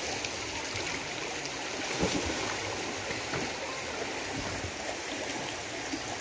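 River water flowing steadily, with a single soft knock about two seconds in.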